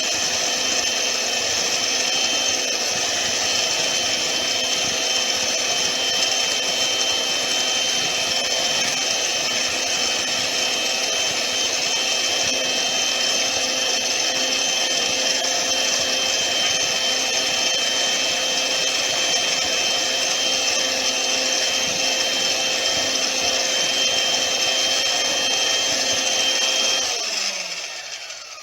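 Electric hand mixer with a single beater running at a steady speed, with a constant whine. It is switched off near the end and winds down with a falling pitch.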